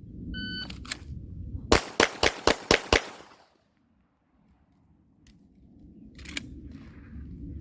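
Shot-timer start beep, then a handgun fired six times in rapid succession, about a quarter second between shots: a Bill drill string.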